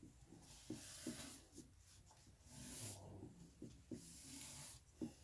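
Faint rubbing and rustling of a stencil being pressed and wiped dry on a paper towel by hand, in a few soft strokes with light taps.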